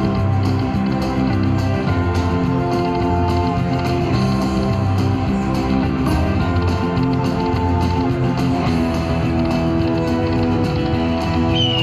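Buffalo Cash slot machine playing its free-games bonus music: a guitar-led tune with a steady beat while the reels spin. A brief falling high tone sounds near the end.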